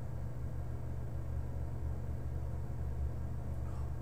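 A steady low hum, even in level, with no distinct sounds standing out.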